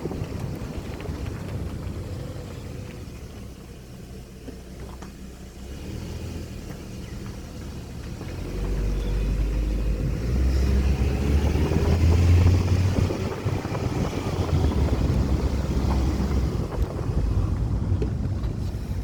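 Low rumble of wind buffeting the microphone. It eases off for a few seconds, then swells up strongly about halfway through before easing again near the end.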